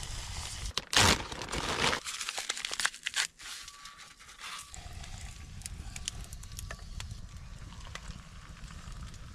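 Hot-chocolate mix packet crinkling and tearing as it is opened and poured into an enamel mug, over the scattered sharp crackle of a campfire. A loud rush of noise lasts about a second, starting about a second in.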